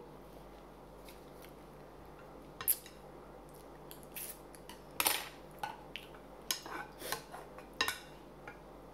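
A white plastic ladle and wooden chopsticks clicking and scraping against a metal frying pan of noodle soup. There is one sharp clink a little under three seconds in, then a scattering of clinks and scrapes over the last few seconds.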